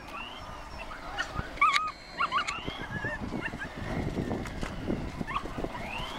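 Dog yipping and whining in excitement: a handful of short, high, bending yelps, loudest about a second and a half in and again near the end, over a low rumble in the second half.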